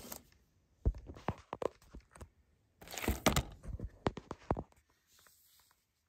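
Shrink-wrapped plastic DVD case being handled and flipped over on a table: a series of sharp clicks and knocks from the case, with rustling and crinkling of the plastic wrap, coming in two bursts.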